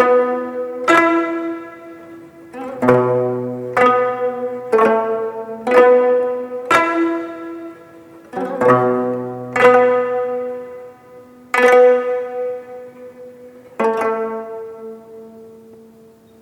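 Jeongak gayageum ensemble plucking slow, separate notes, about one a second, each ringing and fading. A deep low note sounds about three seconds in and again about eight seconds in. The notes grow further apart, and the last one dies away near the end.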